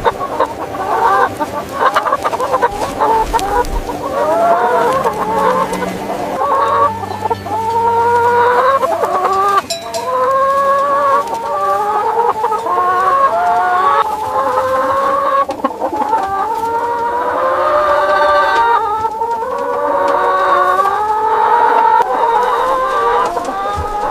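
A flock of chickens clucking and calling, many voices overlapping continuously.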